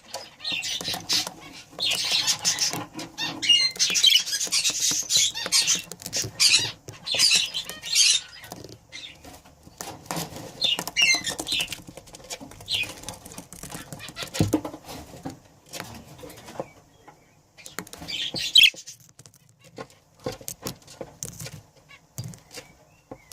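A pair of budgerigars chattering in bursts of high, warbling chirps, busiest in the first half, with many short clicks and rustles of movement between them.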